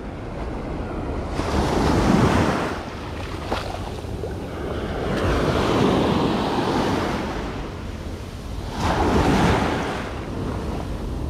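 Sea waves surging and washing on the shore, swelling three times (about two, six and nine seconds in), with wind buffeting the microphone.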